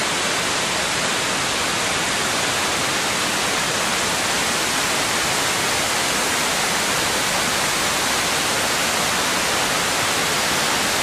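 Waterfall: a steady, loud rush of falling water, even and unbroken.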